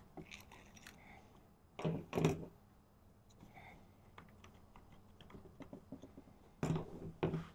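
Light clicks and taps of tools and small parts being handled on a workbench, with two louder pairs of clattering knocks, one about two seconds in and one near the end.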